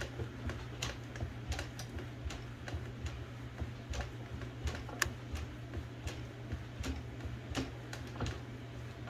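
Light, irregular clicks and ticks from an Olivetti Linea 98 typewriter's mechanism being worked by hand, a few a second, over a steady low hum.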